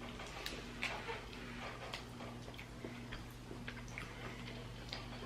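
Quiet chewing of a soft almond-and-honey sweet: faint, irregular small clicks and mouth sounds over a steady low hum in the room.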